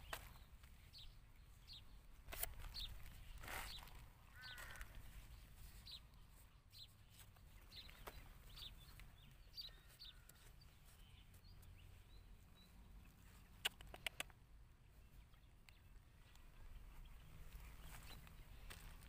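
Near silence: faint outdoor background with scattered distant bird calls, and a few sharp clicks a little past halfway.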